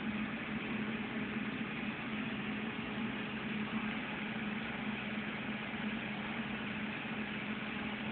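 Aquarium air pump humming steadily, with a hiss from its stream of bubbles rising through the tank.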